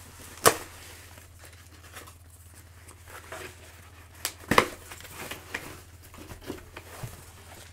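A package being opened by hand: packaging rustling, crinkling and tearing, with two sharp knocks, about half a second in and about four and a half seconds in.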